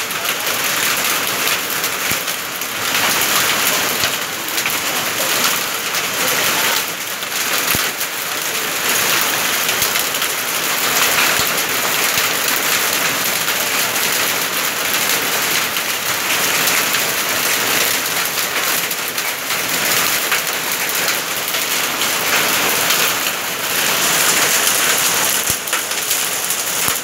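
Heavy rain mixed with hail pelting a flooded paved driveway and nearby shrubs: a dense, steady hiss of drops on water, with a few sharper taps now and then.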